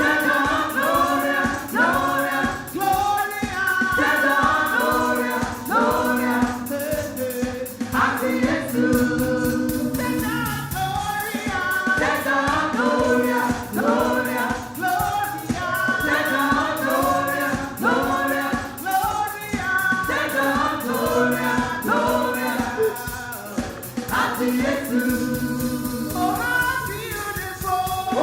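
Gospel worship song: several voices sing together over instrumental accompaniment with a steady beat.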